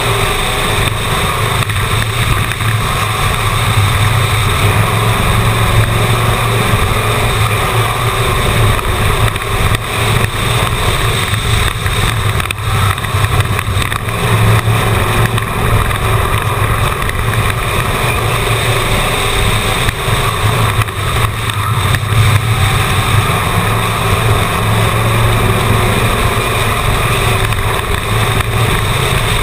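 Stock car's engine heard from inside the car at racing speed around an oval, loud and steady with slight swells now and then, mixed with wind and road noise.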